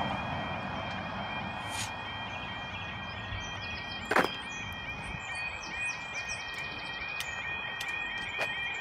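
UK level crossing warning alarm sounding its fast, repeating warbling 'yodel' tone while the warning lights flash and the barriers begin to come down: the signal that a train is approaching. A single sharp knock comes about four seconds in.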